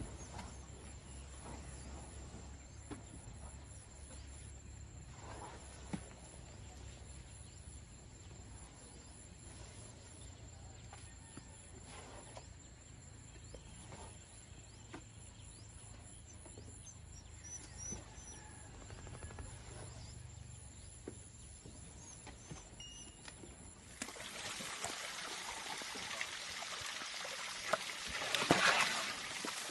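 Outdoor ambience with a low rumble and scattered faint thuds of dirt as elephant calves rub against a dry earth bank. About 24 seconds in it changes abruptly to a louder, steady splashing hiss of wet mud and water as an elephant calf wallows in a mud pool, with a louder slosh near the end.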